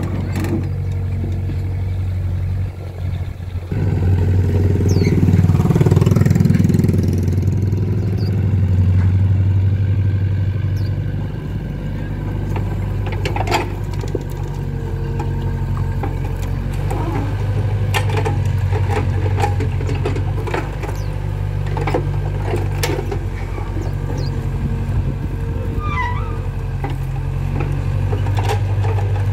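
Volvo EC55B compact excavator's diesel engine running steadily, swelling under load about four seconds in and again several times as the hydraulics work the arm and bucket through wet mud. Scattered sharp knocks and clanks from the digging run through it.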